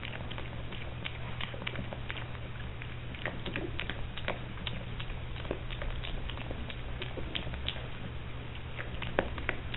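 Piglet eating dry feed pellets: irregular crunching and clicking as it chews and noses through the pellets, with one louder click near the end. A steady low hum runs underneath.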